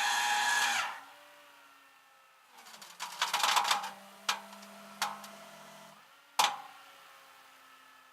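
A small motor whines steadily and cuts off about a second in. A rattle follows, then a few sharp clicks and one loud knock.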